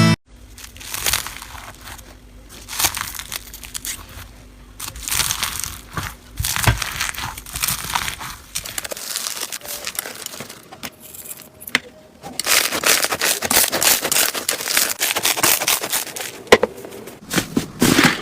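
Slime being squished and pressed by hand, a dense run of sticky crackling and popping clicks that grows louder and busier about two-thirds of the way through.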